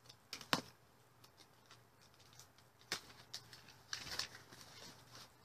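Cardboard shipping box being opened: a blade slitting the packing tape along the seam, then the flaps pulled apart. A few sharp clicks and snaps, the loudest about half a second in, and a burst of cardboard rustling around four seconds in.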